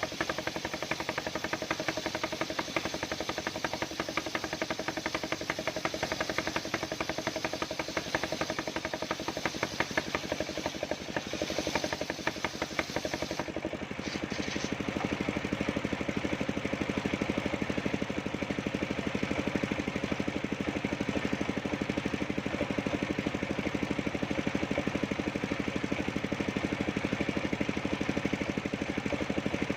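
Engine-driven homemade circular saw sawing coconut wood: the engine runs with a fast, even pulse, with a hiss of cutting over it for the first half. About fourteen seconds in the hiss drops away and the engine runs on steadily, slightly louder.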